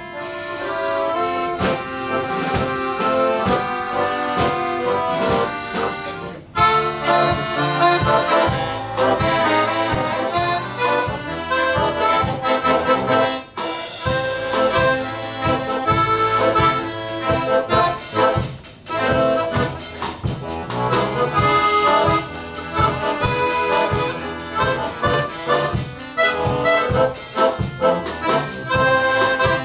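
Accordion orchestra playing live, many accordions together in a rhythmic piece, with short breaks in the phrasing about six and thirteen seconds in.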